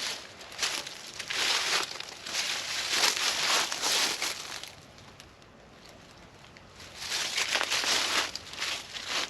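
Crinkly rustling in two long stretches: the first starts about half a second in and lasts about four seconds, the second starts about seven seconds in.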